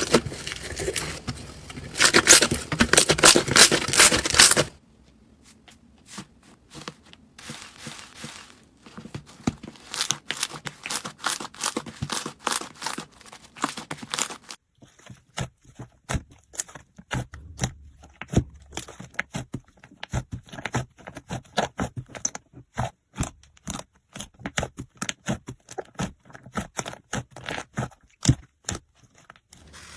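Slime being squeezed, stretched and poked, giving crackles, clicks and tearing sounds. A dense, loud crackle for the first few seconds gives way to sparser clicks and pops about five seconds in, then quick, sharp clicks from about fifteen seconds in.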